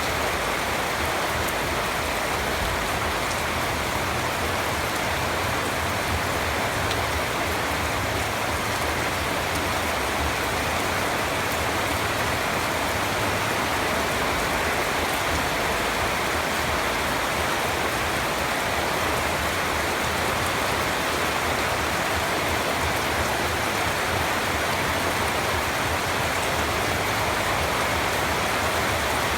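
Steady rain falling and pattering on a surface, an even hiss of many drops with no let-up.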